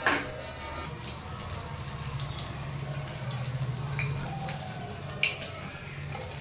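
A pancake of flattened-rice batter deep-frying in hot oil in a kadai, sizzling with scattered small pops and crackles. A sharp knock comes right at the start, and a louder pop about five seconds in.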